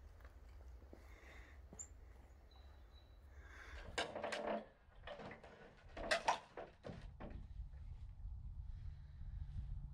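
A few sharp knocks and clatters, in two clusters about four and six seconds in, over a steady low rumble.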